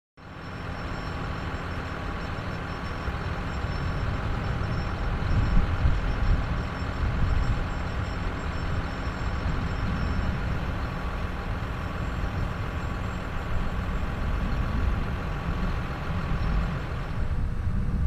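John Deere 6215R tractor and Dewulf potato harvester running: a steady deep engine drone with machinery noise over it. Near the end the higher part of the sound drops away and it turns duller.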